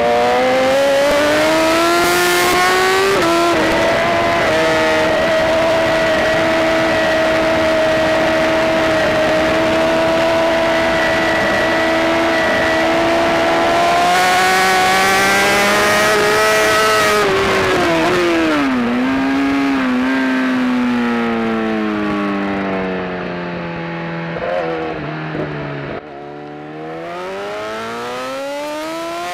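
Onboard sound of a superbike racing motorcycle at speed, its engine held high in the revs with rushing wind over it. About two-thirds of the way through the engine note falls steadily as the bike slows for a corner, with a couple of short blips, drops sharply near the end, then rises again as the bike accelerates away.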